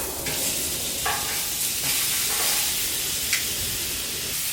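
Steaks searing on a hot Blackstone flat-top griddle, a steady sizzle, with one brief click about three seconds in.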